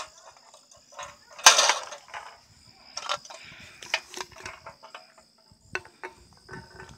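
Insects calling in a steady, high, unbroken hum, with scattered clicks, knocks and rustles of handling. The loudest is a short rustle about one and a half seconds in.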